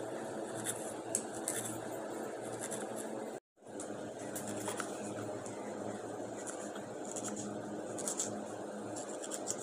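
Knife cutting through a red onion on a wooden chopping board: a few faint, crisp cuts spaced irregularly over a steady background hum. The sound drops out briefly about three and a half seconds in.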